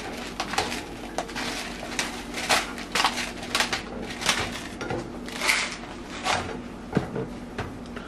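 A plastic spatula scraping and pushing scrambled eggs around a nonstick frying pan in a series of short strokes, while a pepper grinder is twisted over the pan.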